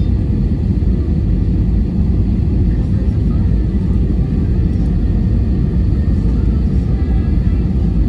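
Steady low rumble of an Airbus A320 in flight, engine and airflow noise as heard inside the passenger cabin.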